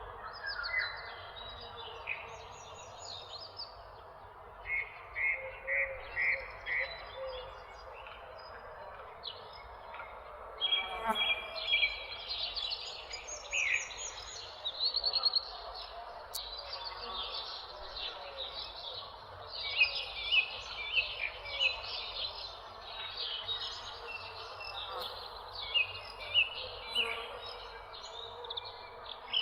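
A flock of parakeets chirping and chattering, with clusters of short, rapid chirps coming every second or two over a steady background of softer calls.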